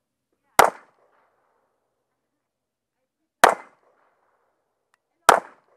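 Three gunshots fired on a timed shooting stage, about a second in, near the middle and near the end, each with a short echoing tail.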